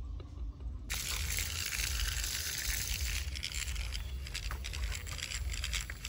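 Remote-control toy centipede crawling on concrete: a steady hiss from its motor with fast, light clicking from its plastic legs and mechanism, over a low rumble.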